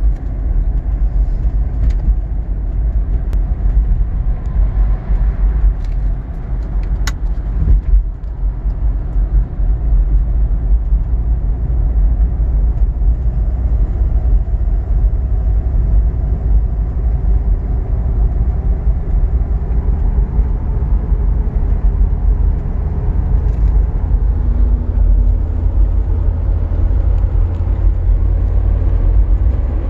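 Inside the cabin of a Mitsubishi Pajero 3.5 V6 GDI driving on Goodyear Wrangler AT/SA+ all-terrain tyres (265/70R16): steady low tyre-and-road rumble mixed with the engine running, and a few brief clicks. The owner calls the tyre noise very quiet for an all-terrain tyre.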